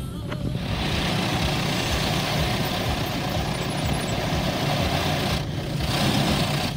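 Automatic car wash spraying water over the car, a steady rushing hiss heard from inside the cabin over a low rumble, easing briefly about five and a half seconds in.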